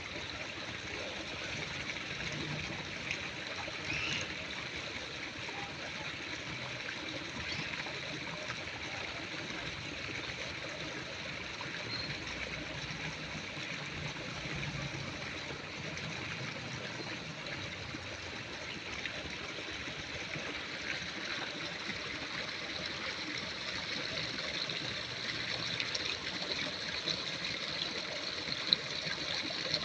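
Steady rushing of flowing water, growing a little louder near the end.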